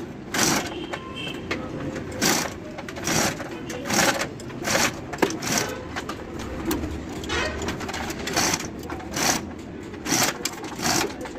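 Chain hoist's chain clinking and rattling in short, sharp bursts, irregularly about once a second, as a diesel engine hanging from it is lowered into the car.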